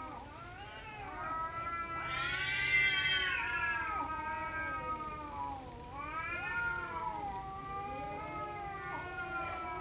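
Two domestic cats caterwauling at each other in a standoff: long, drawn-out, wavering yowls that overlap with no break, swelling loudest about two to three seconds in. It is the threat yowling of a territorial face-off that can lead to a fight.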